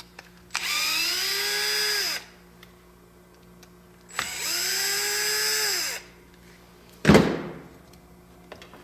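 Cordless drill/driver with a Phillips bit run in two short bursts of about two seconds each on the screws holding an RC excavator's electronic speed control. Each burst whines up in pitch as the motor spins up and drops away as the trigger is released. A single loud knock comes near the end.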